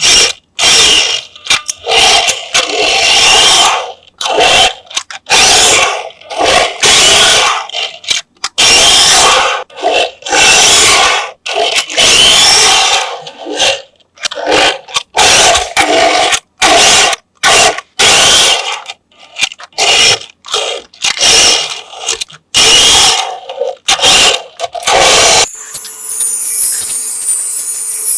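Small electric motor of a remote-control toy car whirring in many short bursts, starting and stopping every second or so. Near the end it gives way to a steadier, hissing sound.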